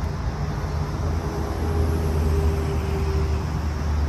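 A passing motor vehicle's engine: a low, steady rumble with a faint hum above it, swelling about halfway through.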